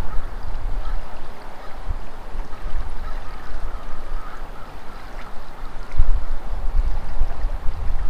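Shallow creek water flowing steadily, under an uneven low rumble of wind buffeting the microphone that swells about six seconds in.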